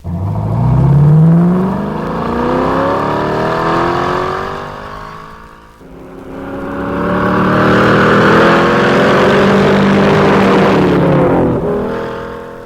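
1961 Chevrolet Corvette's fuel-injected 283 V8 accelerating hard, its pitch climbing steadily. About six seconds in the sound drops away briefly, then the engine climbs in pitch again and fades out near the end.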